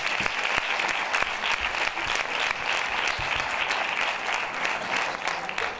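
Audience applauding, a steady patter of many hands clapping that thins out near the end.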